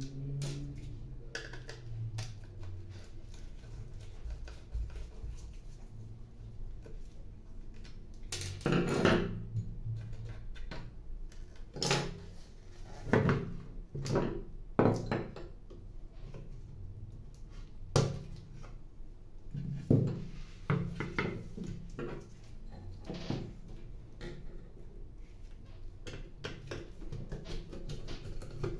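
Scattered clicks and knocks of plastic parts as a laser toner cartridge is taken apart by hand, its drum lifted out and the parts set down, with several louder knocks in the middle stretch.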